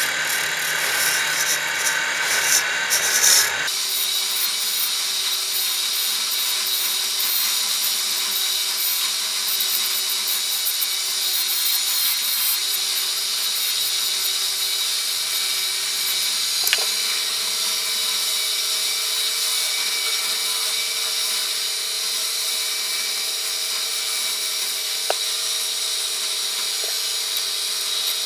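Wood lathe running while a flat turning chisel cuts a spinning hardwood piece: a steady cutting hiss over the hum of the lathe. The sound changes abruptly about four seconds in.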